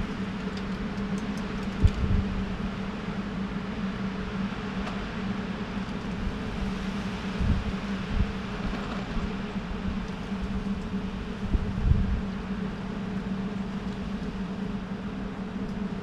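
Steady low mechanical hum, like a fan or motor running, with a few soft low thumps about two, seven and a half and twelve seconds in.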